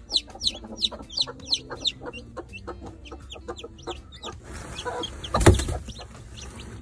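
Newly hatched chicks peeping: short, high, falling chirps about three a second, thinning out after about four seconds. A loud knock with rustling about five and a half seconds in.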